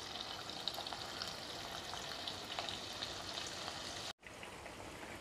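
Marinated boneless chicken pieces sizzling and crackling as they deep-fry in hot oil in a kadai, steady with small pops. The sound drops out for a moment about four seconds in.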